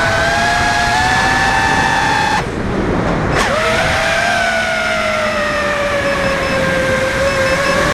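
FPV racing drone's electric motors and propellers whining steadily. About two and a half seconds in the whine drops out for about a second as the throttle is cut, then spools back up with a quick sweep and settles into a slowly falling pitch.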